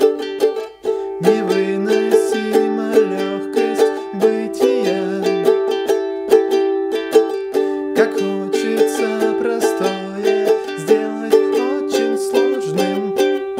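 Ukulele strummed in a steady rhythm of chords. A low male voice sings along in two long stretches.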